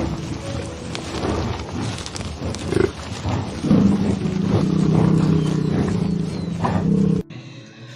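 A large wild animal growling in low, rough calls, then one long low call held from about halfway in that cuts off suddenly near the end.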